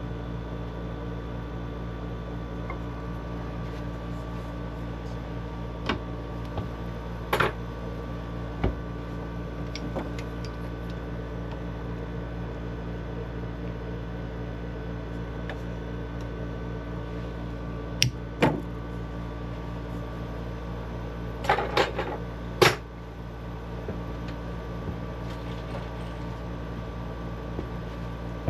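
Scattered clicks and knocks of hand tools and PEX fittings being handled while an elbow is refitted, loudest in a cluster a little past the middle, over a steady hum made of several tones.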